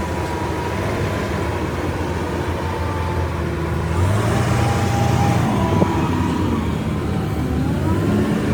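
Heavy vehicle engine running, growing louder and fuller about four seconds in, with one short knock near six seconds.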